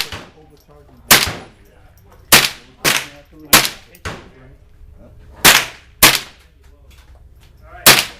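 Rifle shots on a shooting range: about eight sharp reports at irregular intervals, a few of them close together, each with a short ringing tail, and one near the middle softer than the rest.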